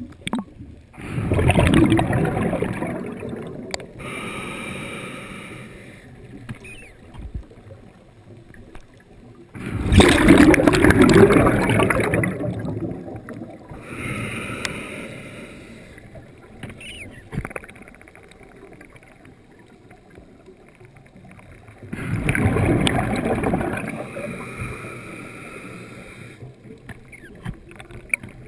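Scuba diver breathing through a regulator, heard through a GoPro's waterproof dive housing: three loud gurgling rushes of exhaled bubbles, about ten seconds apart, with fainter hissing breaths in between.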